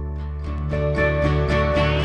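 Background music: a run of plucked string notes, about four a second, over sustained low bass notes.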